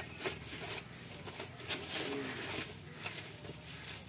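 Plastic wrapping on packets of QR-code stands crinkling and rustling as hands sort through them in a cardboard box, with a handful of crisp crinkles.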